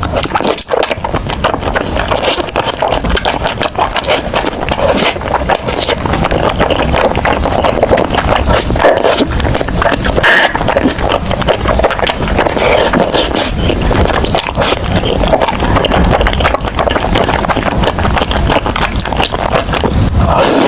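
Close-miked eating: continuous chewing and crunching of food, with dense rapid crackles and clicks throughout.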